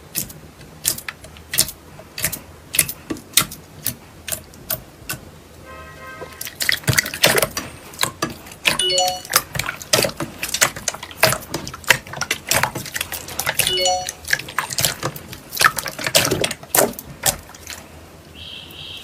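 Slime being squished and pressed by hand: a dense run of sharp wet clicks and pops, thicker from about six seconds in.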